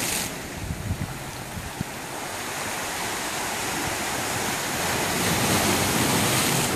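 Ocean surf washing and breaking against the rocky shore below, swelling gradually louder toward the end, with wind rumbling on the microphone.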